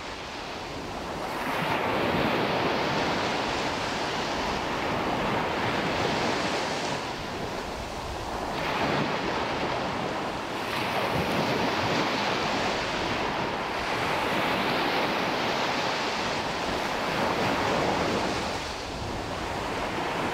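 Wind on the microphone and the wash of sea water: a steady rushing noise that swells and eases every few seconds.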